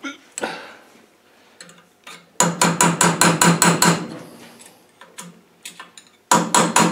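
Hammer striking a steel punch to drive a bearing off an R380 gearbox layshaft: rapid metallic blows, about six or seven a second, each with a short ring. A run of blows starts about two and a half seconds in and lasts about a second and a half, and a second run starts near the end, after a few light taps. The bearing is tight and slow to come off.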